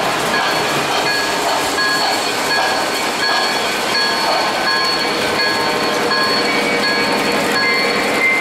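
O-gauge three-rail model trains running, the MTH Alaska Railroad 0-6-0 steam switcher among them: a steady rumble of wheels on the track, with short, evenly repeated electronic tones from a locomotive's sound system over it.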